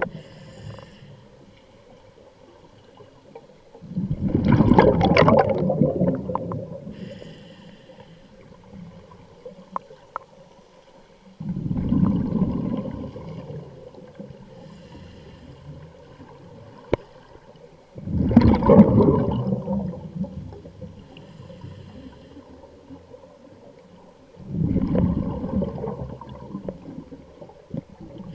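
A scuba diver breathing through a regulator underwater, heard as four bursts of rushing exhaled bubbles about six to seven seconds apart.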